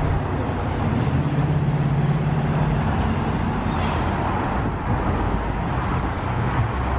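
City street traffic noise: a steady roar of cars on the road, with a vehicle's low engine hum standing out for a couple of seconds near the start.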